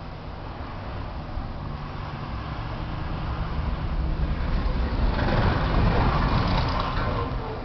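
A motor vehicle passing by: a steady rumbling noise that grows louder over several seconds, peaks about five to seven seconds in, then begins to fade.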